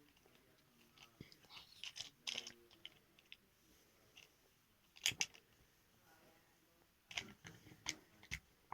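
Small plastic doll accessories being handled and packed into a toy bag: scattered light clicks and rustles, with a sharper clatter about five seconds in and a few more near the end.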